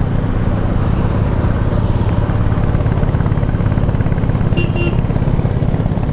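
KTM Duke 390's single-cylinder engine running steadily as the motorcycle is ridden, with a brief high tone a little past the middle.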